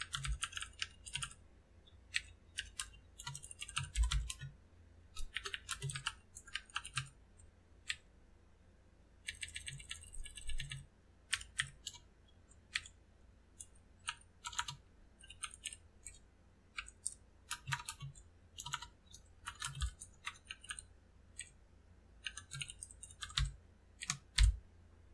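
Typing on a computer keyboard: irregular runs of keystrokes with short pauses between them, and a quicker, even run of clicks about ten seconds in.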